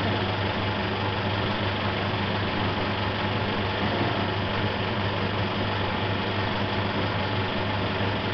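Film projector running steadily, its motor and film mechanism giving an even whirr over a steady low hum.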